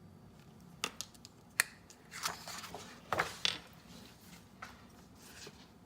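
A few small clicks followed by brief rustling and scraping, the sound of small objects being handled and shifted on a surface.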